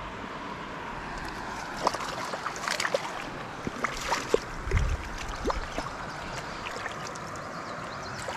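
Shallow trout stream running steadily, with a scatter of short clicks and rustles in the middle from the fish and gear being handled close by.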